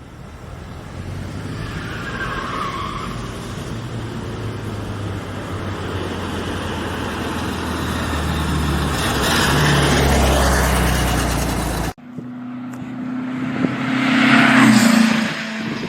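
A motor vehicle engine running and building in loudness, cut off abruptly about twelve seconds in. Another engine sound then starts and swells near the end.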